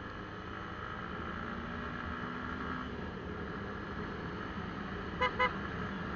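Motorcycle running steadily at road speed, its engine mixed with wind and tyre noise on the mounted camera. About five seconds in, a horn gives two short beeps.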